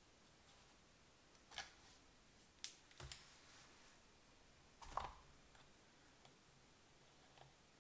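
A few small clicks and taps as a homemade steel lens spanner wrench and a Helios 44-2 camera lens are handled, the spanner's pins meeting the lens's retaining ring; the loudest tap comes about five seconds in.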